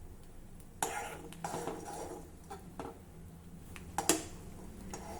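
A spoon clinking and scraping against a kadhai while stirring boiling bajra soup: a handful of light knocks, the loudest about four seconds in, over a faint steady hum.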